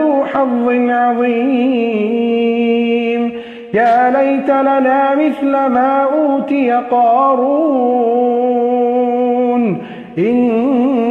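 Quran recitation in a slow melodic tajweed style: one voice holding long, ornamented notes, pausing briefly for breath twice.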